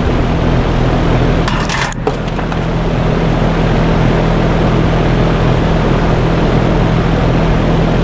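2013 Trane XB13 3-ton, 3-phase heat pump outdoor unit running in heat mode: the condenser fan and compressor give a steady hum over rushing air. There is a brief burst of higher-pitched noise about one and a half seconds in. The unit is frozen up, which the owner blames on a bad board or sensor.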